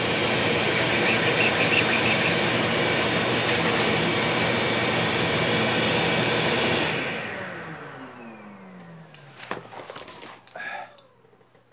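A loud electric machine running steadily with an even rushing noise, switched off about seven seconds in and winding down, its hum falling in pitch over a couple of seconds. A few knocks and handling sounds follow near the end.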